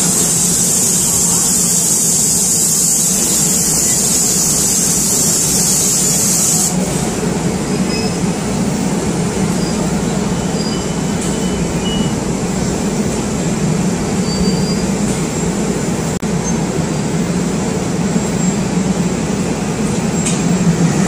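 Seoul Subway Line 4 train running, heard from its roof: a steady rumble of wheels on rail with a high hiss that stops suddenly about seven seconds in.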